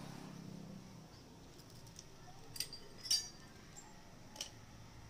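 Three short metallic clinks, the loudest about three seconds in with a brief ring: a Hero Honda Achiever motorcycle cylinder head knocking against the cylinder studs as it is fitted onto the engine block.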